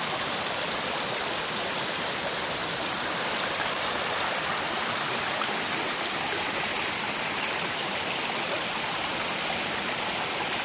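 Small forest creek rushing over rocks with a low waterfall: a steady, even rush of water.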